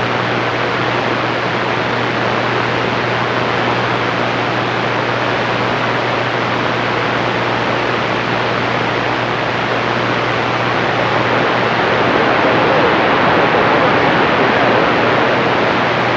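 CB radio receiver putting out steady static hiss with its squelch open, with a faint low hum under it. The hiss swells a little about twelve seconds in.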